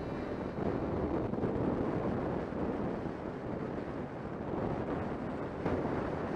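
Wind rushing and buffeting over the camera microphone of a Kawasaki Concours 14 touring motorcycle moving at road speed, with muffled riding noise underneath.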